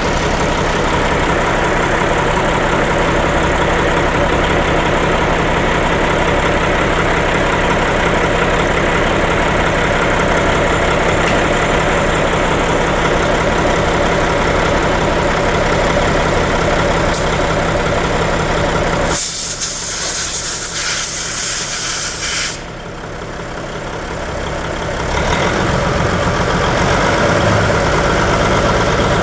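A heavy truck engine idling steadily. About two-thirds through, a hiss of air lasting about three seconds takes over while the engine sound drops away, then the engine sound builds back up.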